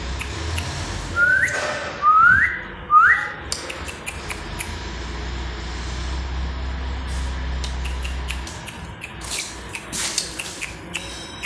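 A person whistling to call a dog: three short whistles, each rising in pitch, about a second apart. A low steady hum sits underneath in the middle part.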